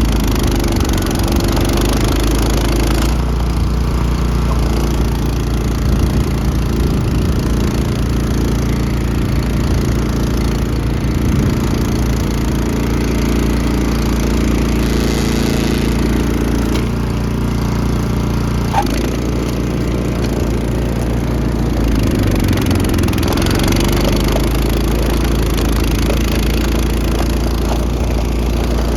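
Honda snowblower's gasoline engine running steadily while cutting through a deep snowbank, its note shifting a few times as the load changes.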